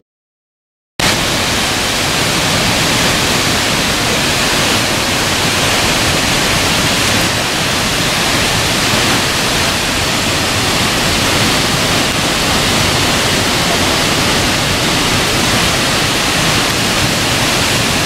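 Skógafoss, a tall waterfall, pouring into its plunge pool, heard up close as a loud, steady rush of noise. It cuts in suddenly about a second in, after a moment of silence.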